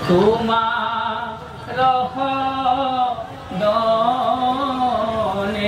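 A man singing a devotional verse in the chanted style of Assamese bhaona, in three long phrases of drawn-out, gently wavering notes.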